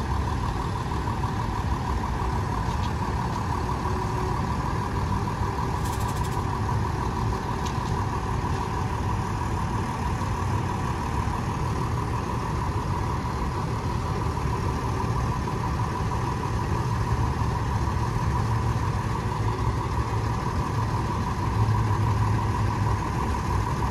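Maintenance truck's engine running steadily, a low rumble with a steady hum above it, and one brief click about six seconds in.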